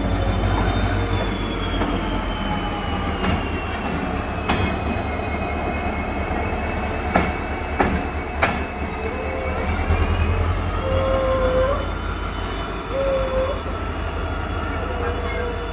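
EMD WDG4 diesel locomotive's two-stroke V16 engine running with a steady low rumble, under a high whine that drifts slowly in pitch. A few sharp clicks come through between about three and nine seconds in.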